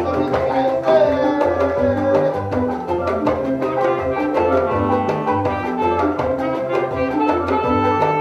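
Adungu music: plucked strings of the Ugandan bow harp playing a repeating pattern over a pulsing bass and a steady drum beat.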